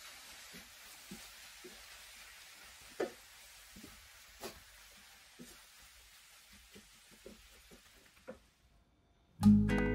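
Vegetables and tofu sizzling in a frying pan as they are stir-fried, with short scrapes and knocks of the spatula against the pan every second or so. The sizzle fades away near the end, and music comes in just before the end.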